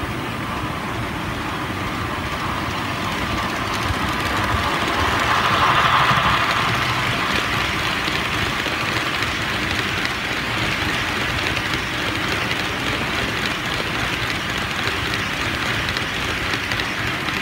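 HO-scale model train, a long rake of Tramway 20 series coaches, rolling past on the track. It makes a steady rumble and rolling hiss of wheels on rail, which swells to its loudest about six seconds in as the train comes nearest.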